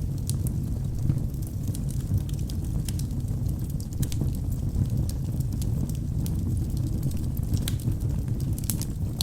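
Wood fire burning in a fireplace: a steady low rumble of flames with frequent, irregular sharp crackles and pops from the burning wood, a few louder pops near the end.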